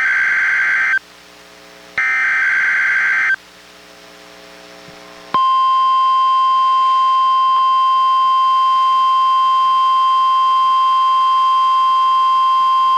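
NOAA Weather Radio Required Weekly Test signals received on a Reecom R-1630 weather radio. One SAME header data burst ends about a second in and another plays for about a second and a half. A few seconds later, about five seconds in, the steady 1050 Hz warning alarm tone comes on and holds.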